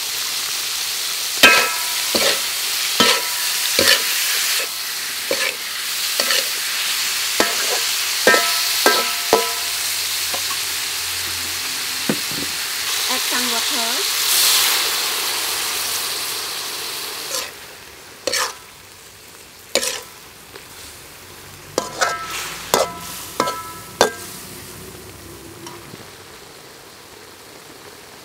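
Shrimp sizzling in a metal wok while a spatula stirs them, each knock of the spatula making the wok ring. The sizzle fades after about seventeen seconds, and a few more clanks follow.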